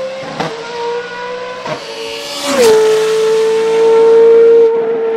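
Formula Renault 3.5 race car's V8 engine running at high, steady revs. The note breaks briefly twice, about half a second and nearly two seconds in. Just past halfway the pitch steps down a little and the sound grows louder, holding steady after that.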